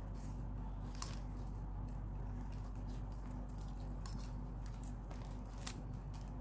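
Stiff plastic craft wire being handled and knotted by hand: a few light clicks and ticks as the strands flick and tap together, the sharpest about a second in and near the end, over a steady low hum.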